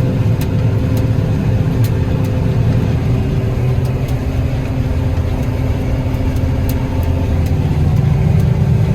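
A vehicle engine running steadily, a low continuous drone with a few faint light ticks over it.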